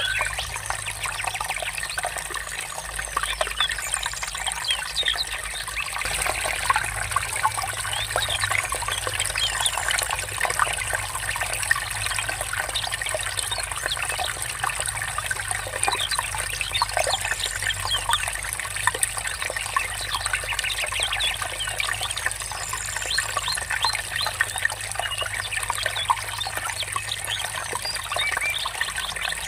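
Water trickling and babbling steadily, with birds chirping now and then.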